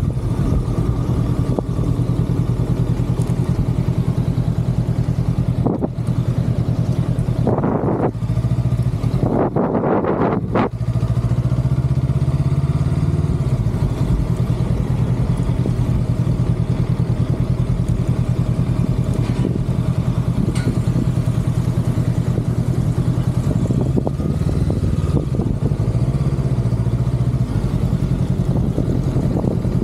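Honda Rebel 500's parallel-twin engine running steadily at low road speed, heard close up from the bike. There are two brief rushes of noise about eight and ten seconds in.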